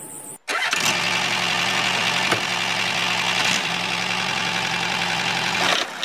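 Miniature DIY toy tractor running with a steady, low, engine-like hum. It cuts in suddenly about half a second in, after a brief moment of silence, and stops just before the end.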